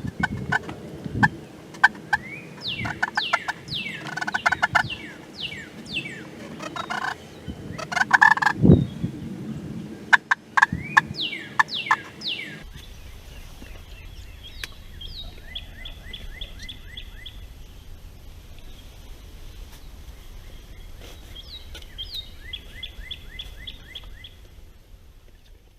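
Wild turkeys calling, with a tom gobbling in short rapid rattling bursts. Sharp clicks and knocks come through the first half.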